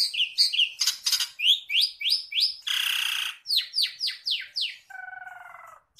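White-breasted waterhen (ruak-ruak) calling: a rapid string of short harsh notes, first rising then falling in pitch, with a noisy burst about halfway through and a lower, held call near the end.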